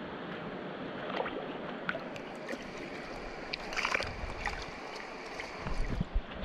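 Mountain stream water running steadily, with a burst of splashing about four seconds in and a few low thumps near the end.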